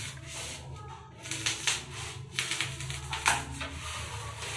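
Scratching and rubbing on a sheet of thermocol (expanded polystyrene foam) as it is marked out and handled. A run of short scratches begins about a second and a half in, the sharpest just after three seconds.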